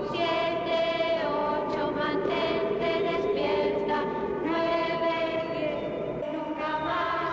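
Background music of long held notes, changing pitch every second or so.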